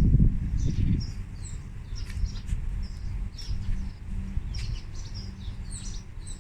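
Small birds chirping repeatedly in short high notes, over a low rumbling noise that is loudest in the first second and then settles to a faint steady low hum.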